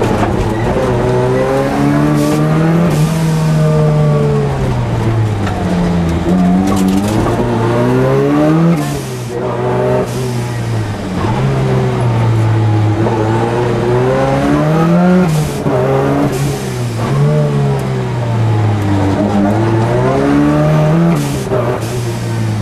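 Ford Sierra RS Cosworth rally car's turbocharged four-cylinder engine heard from inside the cabin at racing speed, its revs climbing and dropping again and again through the gears. A few short, sharp bursts of noise come in between.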